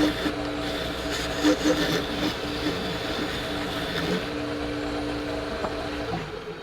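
A small electric motor, such as a workshop power tool's, running with a steady hum that dips briefly under load about four seconds in, then stops near the end.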